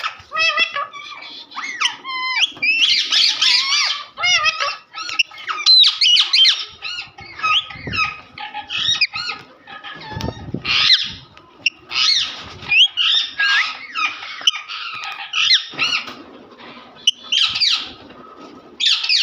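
Pet parrot chattering and squawking: a busy string of short, high-pitched whistled and screechy calls with brief pauses. A short low rustle about ten seconds in.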